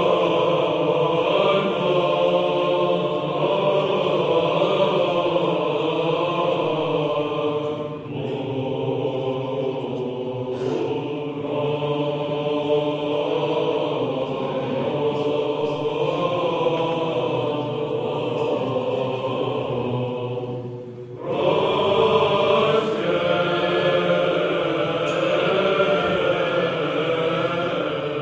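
Orthodox-style chant: voices singing slow, sustained phrases over a steady held drone. The chanting dips and pauses briefly about eight seconds in and again near twenty-one seconds, then carries on.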